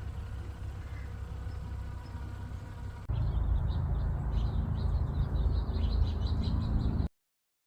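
Birds chirping, many short rapid chirps in the second half over a low outdoor rumble, then the sound cuts off abruptly near the end.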